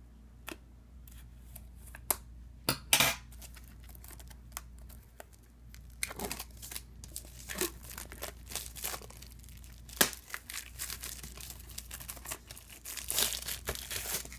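Clear plastic shrink-wrap being snipped with small scissors and torn and peeled off a metal Blu-ray case, crackling and crinkling. Scattered sharp crackles at first, coming thicker in the second half and densest near the end.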